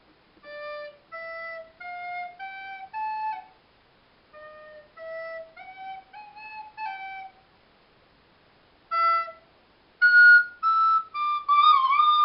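Plastic school recorder played note by note: two short phrases of about five notes each that climb step by step, separated by pauses, then a single note and a run of much higher, louder notes near the end, the last one wavering.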